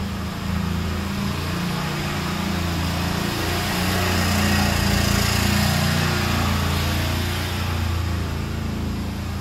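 Small engine of an auto-rickshaw running steadily as it drives through street floodwater, a little louder from about four to six seconds in.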